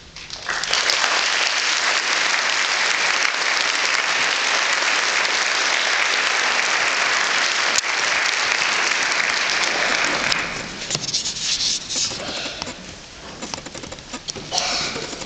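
Audience applauding: the clapping rises sharply about half a second in and holds steady, then thins to scattered claps from about ten seconds on.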